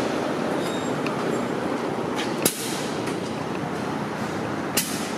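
Tractor-drawn aerial fire truck's diesel engine running steadily, with two sharp clacks, one about two and a half seconds in and one near the end.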